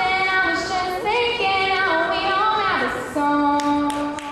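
A girl singing solo into a handheld microphone: long held notes that slide from one pitch to the next, ending on a long steady note.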